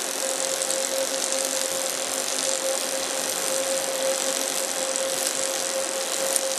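Robotic MIG arc welding: a steady crackling hiss from the welding arc with one constant buzzing tone running through it.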